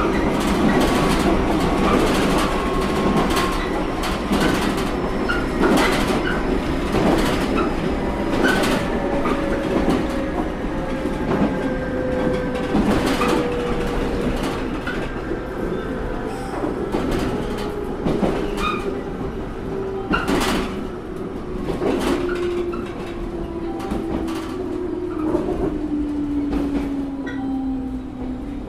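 Interior running sound of a JR Kyushu 713 series electric multiple unit: the motor and gear whine slides steadily down in pitch as the train slows. Wheels click over rail joints above a low rumble, the clicks spacing out and the sound growing quieter toward the end.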